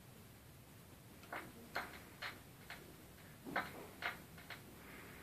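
Stylus riding a spinning vinyl record ahead of the music: faint surface hiss with a sharp pop or crackle about every half second.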